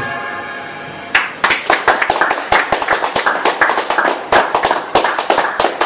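The last saxophone note dies away, then an audience starts clapping about a second in, with individual claps audible.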